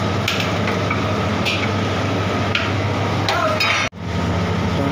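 Metal spoon stirring and clinking against an aluminium cooking pot, first in rice and boiling water, then in thick chicken masala, over a steady low hum. The sound drops out for an instant about four seconds in.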